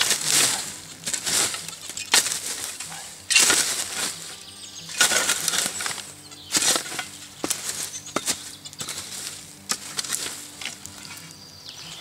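A shovel digging into forest soil through dry leaf litter, grass and roots, with repeated scraping, crunching strokes about once a second as a metal detector target is dug out.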